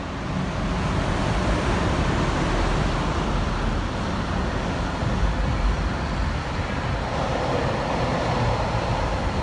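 Steady traffic rumble, rising about half a second in and holding.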